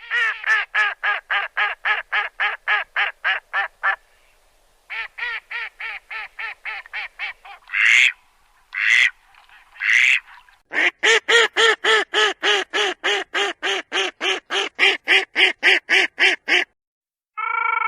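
Duck quacking in long rapid runs, about four quacks a second, broken by a few longer, harsher calls around the middle.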